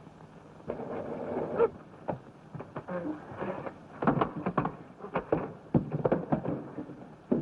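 A flurry of irregular thumps and crashes over a rough rumbling noise, starting about a second in and growing busier halfway through.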